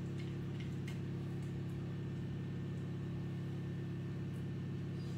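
Steady low mechanical hum, like an appliance or fan running, with a few faint light clicks of a knife spreading filling onto bread.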